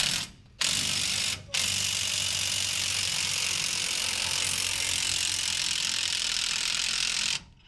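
Power wrench run briefly, then held on for about six seconds against a tight nut that does not break loose.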